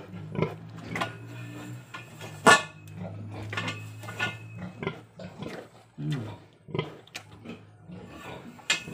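A sow close to farrowing grunting, with a short low grunt about six seconds in. Sharp clanks and knocks come throughout, the loudest about two and a half seconds in, with a steady low hum in the first half.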